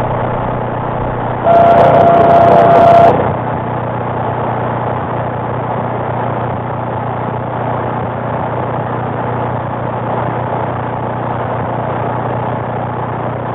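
CB radio receiver hissing with static between transmissions, with a steady low hum under it. About a second and a half in, a louder burst with a steady tone sounds for about a second and a half, then cuts off, leaving the hiss.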